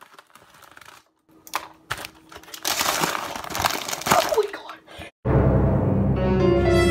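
Bag of Milano cookies being handled and torn open, a crinkling and rustling that grows loud in the middle. About five seconds in, eerie horror music cuts in suddenly and loudly.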